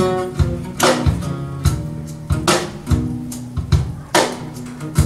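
Recorded music playing through a pair of Wilson Audio Sabrina loudspeakers, picked up in the room: an instrumental passage of drums and guitar with a steady beat, a drum strike about every 0.8 s.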